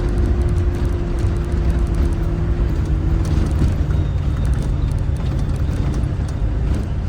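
Land Rover engine and drivetrain running under way on an off-road trail, a steady low rumble with a whine whose pitch drops about three seconds in.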